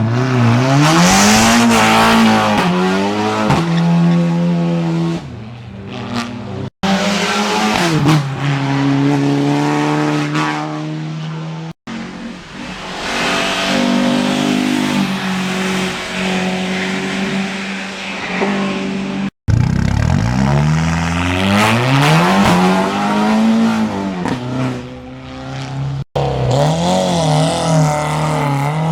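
Hill-climb race cars at full throttle, their engines revving hard, with the pitch rising and falling again and again. Several separate passes are joined by abrupt cuts, about four in all.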